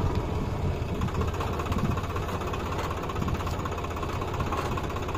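Tractor diesel engines running steadily, the nearest a Swaraj 744 FE's, with an even, fast knocking beat.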